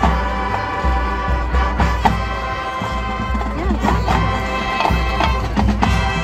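Marching band playing: wind instruments hold chords over a low bass line, punctuated by sharp percussion hits.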